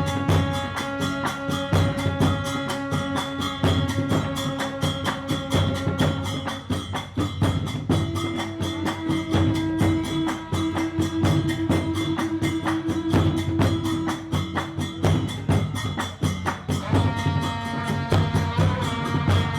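Traditional Khmer ensemble music on recreated Angkorian instruments: a fast, even percussion beat under long held melody notes that shift to new pitches several times.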